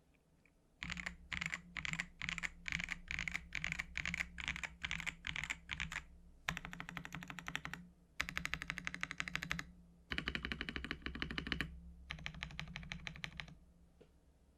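Ajazz AK820 mechanical keyboard with AS Red linear switches and ABS keycaps being typed on. First come separate groups of keystrokes about two a second, then four runs of fast continuous typing with short pauses between them.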